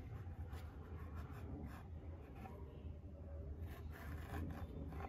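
A knife sawing through a stacked bread sandwich with potato stuffing, heard as a series of faint, irregular scraping strokes over a low steady hum.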